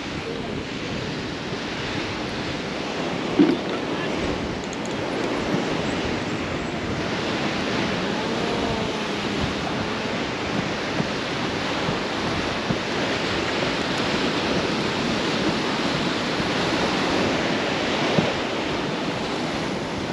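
Steady rush of ocean surf mixed with wind buffeting the microphone, with a short knock about three and a half seconds in.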